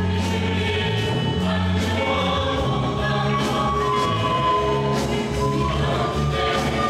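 Live gospel praise music: voices singing together over instrumental accompaniment with sustained bass notes and light drum strokes about once a second.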